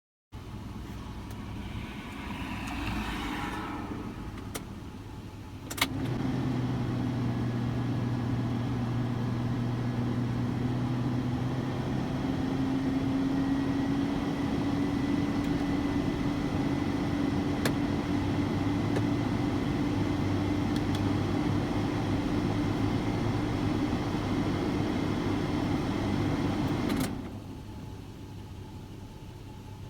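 2007 Toyota Tacoma engine running steadily from about six seconds in, with a thin high whine riding over it that is taken for a failing alternator. The alternator is not holding charging voltage. The sound cuts off near the end.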